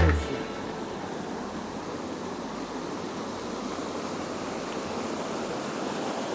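Steady rushing of shallow river water running over a riffle, an even noise without rhythm or pitch.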